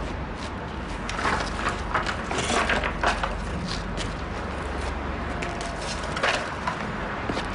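Boots stepping over charred rubble and broken boards, with irregular crunches and cracks of debris underfoot over a low steady hum.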